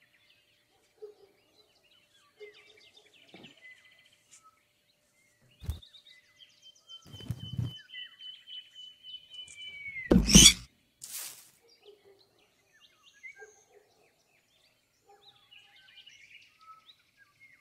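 Cartoon sound effects over faint birdsong: a few soft knocks and rustles, then a held high whistle that bends down in pitch into a loud whoosh about ten seconds in, followed by a short hiss.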